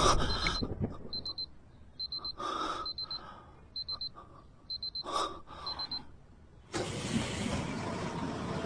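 Electronic alarm beeping: short high-pitched beeps in quick groups of three or four, one group about every second, seven groups in all. Two brief rushes of noise come between them, and a steady hiss comes in near the end.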